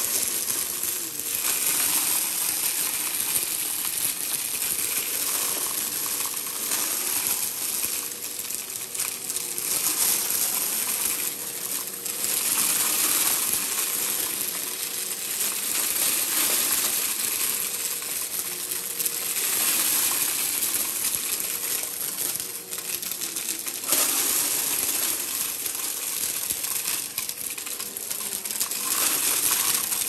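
Bagless upright vacuum cleaner running on carpet, its motor a steady tone under a dense rattling clatter of small hard flakes being sucked up through the nozzle into the bin. The noise swells and eases every few seconds as the vacuum is pushed and pulled.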